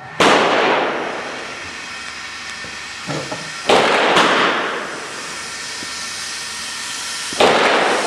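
Rifle shots: four sharp reports, one just at the start, two about half a second apart near the middle and one near the end, each trailing off in a long echoing tail.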